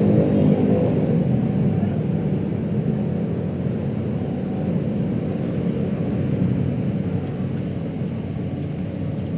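City street traffic: motor vehicle engines and tyres making a steady low rumble. A passing engine's hum fades out in the first second or two, and the overall level eases slightly afterwards.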